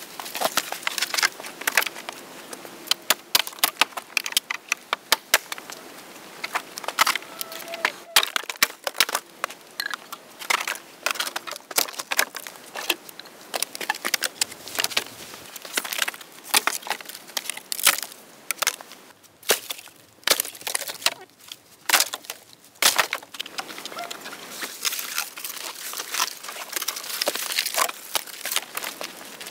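Dry dead branches cracking, snapping and knocking together as they are gathered and handled, a long run of sharp irregular cracks and knocks.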